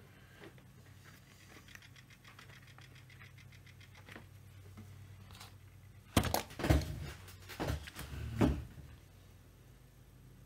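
Handling noise: a quick run of small clicks, then a few seconds of loud knocks and clatter as objects are moved about.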